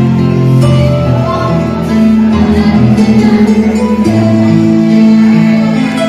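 A man singing into a microphone over recorded backing music, holding a long wavering note about halfway through.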